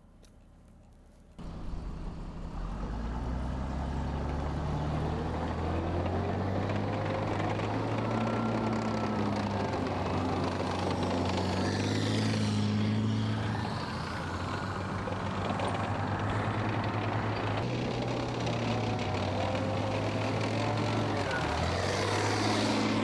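Tracked FV432 armoured personnel carrier running on the move: a steady engine drone with clattering steel tracks and thin squeals from the running gear. The sound comes in abruptly about a second and a half in.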